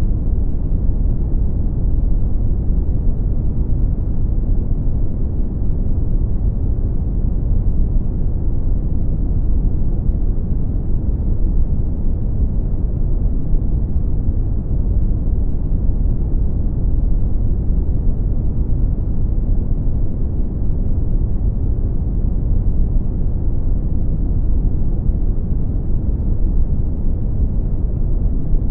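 Brown noise: a steady, deep, even rushing hiss, strongest at the low end with little treble, unchanging throughout.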